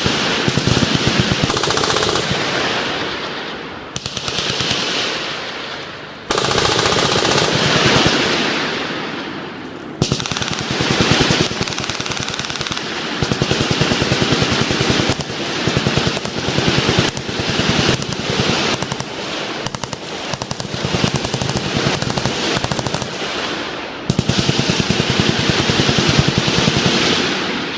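Several machine guns firing long, overlapping fully automatic bursts, almost without pause. The fire trails off a few times before new bursts cut in.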